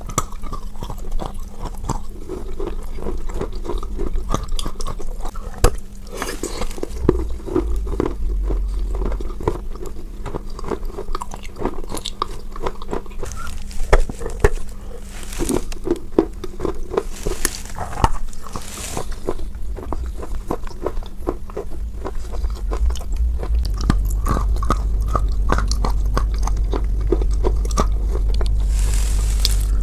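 Close-miked chewing of chalk with paste: many irregular crisp bites and crunches, with softer creamy chewing between them. A steady low hum runs underneath and grows louder about three-quarters of the way through.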